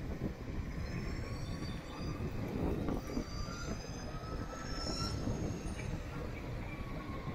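Wind and road rumble from riding, with several thin high-pitched whines layered over it that rise slightly in pitch, once around a second in and again from about three to five seconds.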